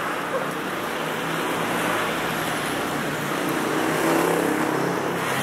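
Road traffic: motor vehicle engines running along a busy city street, with an engine's low hum growing a little louder about four seconds in.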